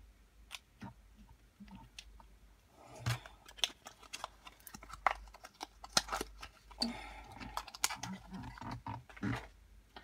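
Nail polish bottles and their caps being handled on a desk: scattered light clicks and taps, irregular throughout.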